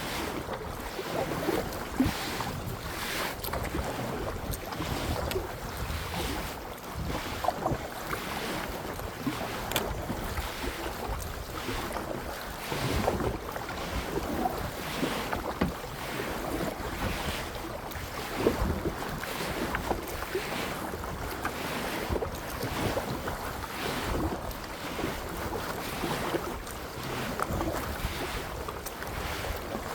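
Kayak paddle strokes splashing in the water at a steady rhythm of about one stroke a second, with wind buffeting the microphone.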